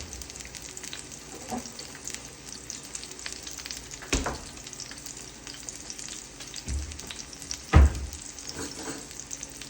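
Food sizzling and crackling steadily in a hot frying pan, with a few short knocks; the loudest comes about eight seconds in.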